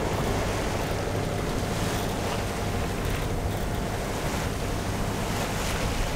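Sea water rushing and splashing along the hull of a sailing yacht under way, with wind on the microphone: a steady wash of noise.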